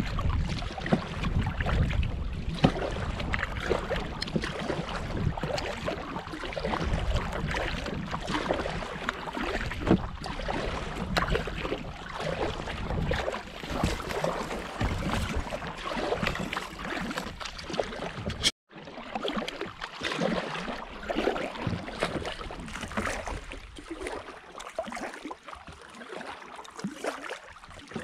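Kayak paddling: paddle blades splashing and dripping at irregular intervals as the kayak moves through lily pads, with wind rumbling on the microphone. The sound drops out for a moment about two-thirds through, after which the wind rumble is gone and the splashing goes on more quietly.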